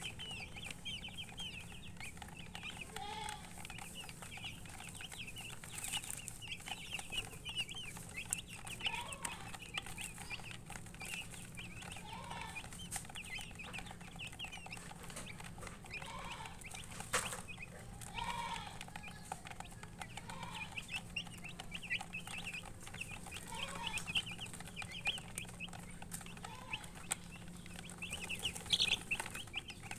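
A crowd of young chicks peeping constantly as they feed: many short, high chirps overlapping, with a lower call every couple of seconds and a single sharp click about seventeen seconds in.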